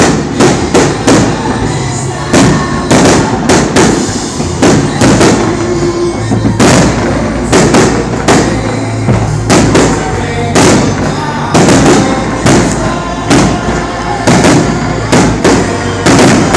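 Fireworks display with aerial shells bursting in quick, irregular succession, about two loud bangs a second.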